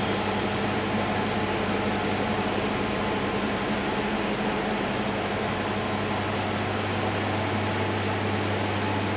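Steady machine hum, a low buzz with an even hiss over it, unchanging throughout.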